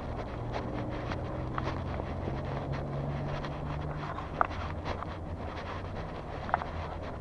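Street ambience on a walk: a vehicle's engine running with a slowly rising pitch over a steady low rumble, footsteps, and wind on the microphone. Two short sharp clicks come about four and a half and six and a half seconds in.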